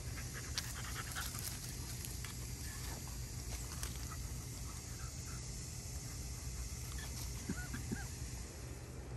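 French bulldog panting, with a few faint clicks, over a steady low hum.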